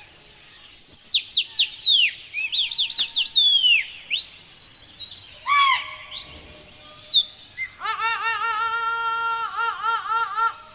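Loud, shrill whistling: a quick run of falling whistle sweeps, then warbling high whistles, and from about eight seconds in a steady trilling tone with a rich, buzzy edge.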